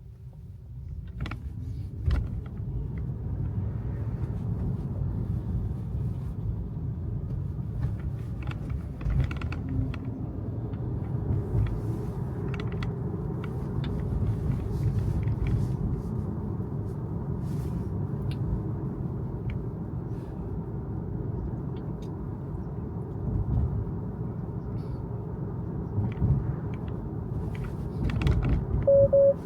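Steady low rumble of tyre and road noise inside the cabin of a Tesla on the move. It swells about a second in, and a few light clicks and knocks are scattered through it.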